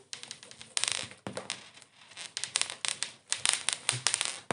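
Homemade slime squished and stretched between hands, giving a dense run of irregular sticky clicks and pops.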